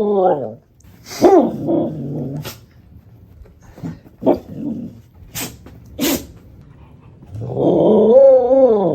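Dog making happy 'arooo' howling vocalizations: a short wavering one about a second in, two short sharp sounds around the middle, and a long, rising-then-falling arooo near the end.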